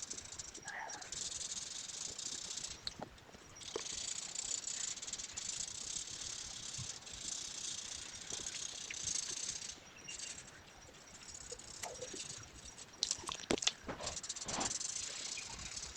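Colouring on paper: a drawing tool's tip scratches across the paper in steady shading strokes. There are two short pauses, and a few light clicks and taps come near the end.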